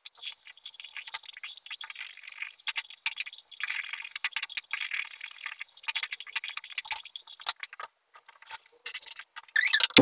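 Bathroom tap running into the sink, with splashing from rinsing out the mouth after toothbrushing; the water stops about eight seconds in.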